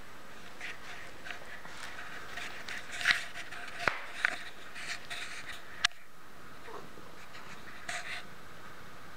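Eight-day-old kittens nursing on their mother and shuffling in soft bedding: faint rustling with scattered small clicks, a few sharper ones in the middle.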